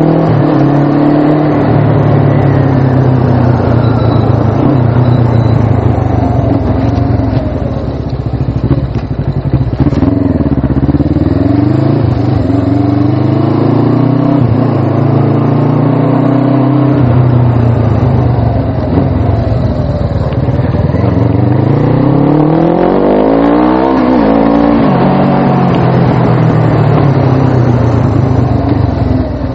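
Suzuki GS500 motorcycle's air-cooled parallel-twin engine running under way, its pitch rising and falling as the rider accelerates and changes gear, with a sharp climb and drop near the end.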